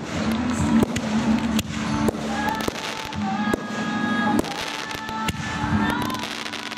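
Aerial firework shells bursting in the sky, a sharp bang about every half second to a second, with music playing underneath.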